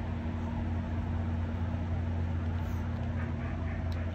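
Steady low mechanical hum of an outdoor air-conditioning condenser unit running.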